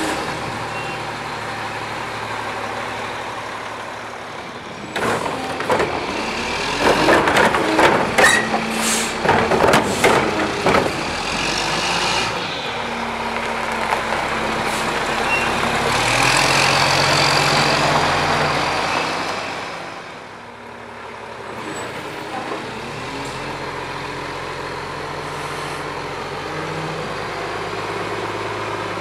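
Mack LE front-loader garbage truck running at a stop. A run of clattering knocks and bangs comes from about five to eleven seconds in. The engine then works louder for several seconds, dips briefly, and runs on steadily as the hydraulic front arms start raising the Curotto-Can carry can over the cab.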